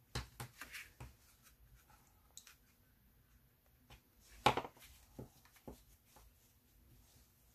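Small clips being clipped onto the edge of a paper journal cover with handling sounds: a few light clicks near the start, a sharp snap about four and a half seconds in, and two softer clicks soon after.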